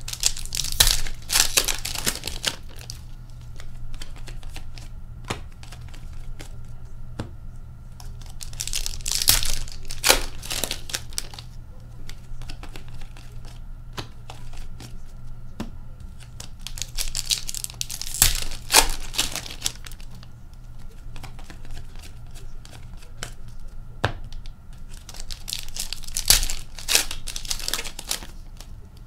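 Foil trading-card packs torn open and crinkled, four times about eight seconds apart, with light clicks and flicks of the cards being sorted in between.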